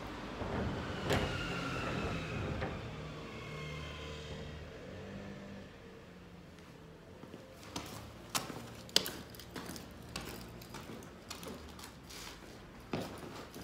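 A vehicle passes by, its engine tone falling slowly over the first few seconds. Then comes a run of separate sharp taps and clicks, the sound of footsteps on paving.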